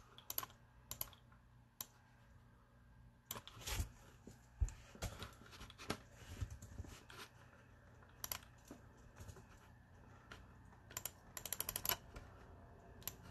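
Faint, irregular clicks and key taps on a laptop keyboard as a list is copied and pasted between programs, with a quick run of about eight taps near the end.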